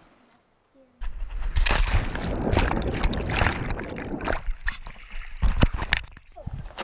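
Water plunge heard from a camera carried into a river pool: a sudden splash about a second in, then dense underwater rushing and bubbling. This is followed by scattered splashes and water sloshing against the camera as it comes back up and the sound dies down.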